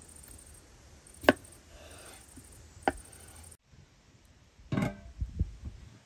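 A knife striking a wooden cutting board twice, two sharp knocks about a second and a half apart, as potatoes are cut. Near the end comes a brief clatter and a few dull thumps.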